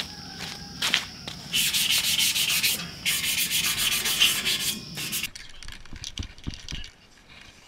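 Hand-sanding touch-up spots on metal exhaust headers to prep them for ceramic coating. It comes as fast back-and-forth rubbing strokes in two runs, from about a second and a half in until about five seconds in. After that the sound drops quieter, with a few low thumps.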